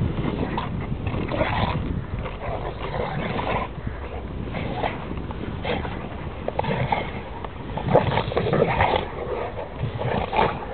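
Dogo Argentinos play-fighting, vocalising in short, irregular bursts, loudest about eight seconds in, over a steady low rumble.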